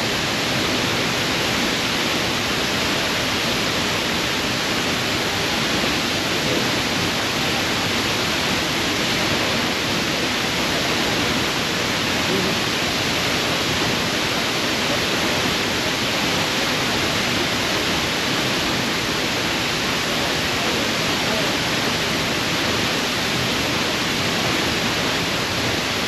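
Large waterfall: falling water making a steady, loud, even rush with no breaks.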